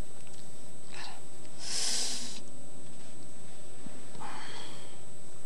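Three sharp sniffs and breaths close to a handheld microphone, the strongest about two seconds in: a man choking up and holding back tears.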